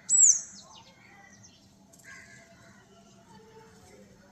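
Sparrows chirping: one loud, high chirp falling in pitch just after the start, a few quick shorter notes right after it, then fainter chirps.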